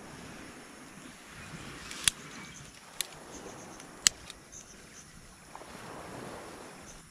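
Dry grass and kindling catching fire, with three sharp snaps about a second apart over a steady low hiss.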